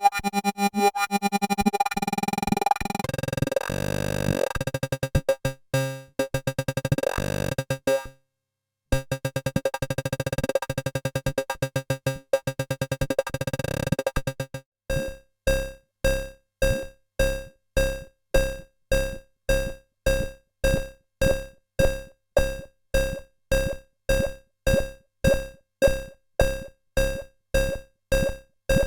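EDP Wasp monophonic analogue synthesizer being played: dense held notes that shift in pitch, with a brief cut-out about eight seconds in, then from about halfway one note repeated about twice a second, each note starting sharply and dying away.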